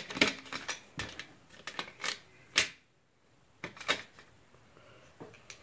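Makeup brush handles clacking and rattling against one another as a handful of brushes is sorted through by hand: a run of sharp clicks and knocks, the loudest about two and a half seconds in, then fainter handling.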